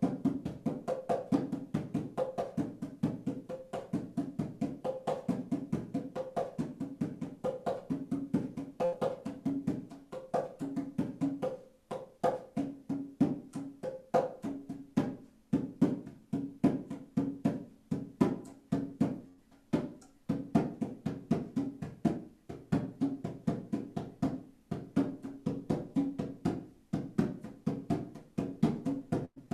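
Hand drum beaten in a fast, steady, even beat, every stroke at the same pitch.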